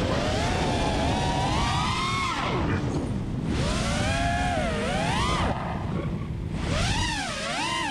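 FPV freestyle quadcopter's Xing 2206 1700Kv brushless motors spinning Ethix S4 props: a buzzing whine that swoops up and down in pitch with the throttle, dropping low briefly about three seconds in and again around six seconds in.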